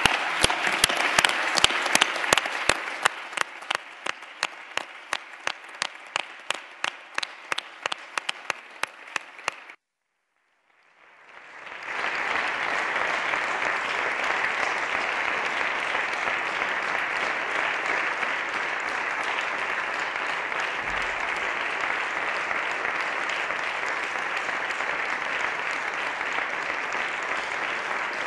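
A handful of people applauding with separate, distinct claps, which thin out to a few clapping steadily at about three or four claps a second. After a brief break about ten seconds in, steady, denser applause continues.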